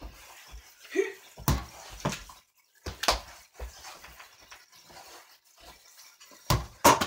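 A ball bouncing and thudding a few times at irregular intervals, with two louder thuds close together near the end.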